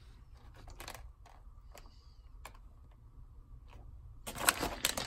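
A few faint clicks as a small plastic mini figure is set down on a stone countertop. About four seconds in, loud crinkling starts as a foil blind-bag wrapper is handled.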